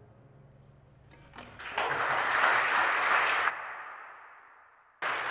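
The last note of the ensemble's strings dies away, then audience applause breaks out about two seconds in. It cuts off sharply past the halfway point, leaving a fading tail, and resumes suddenly near the end.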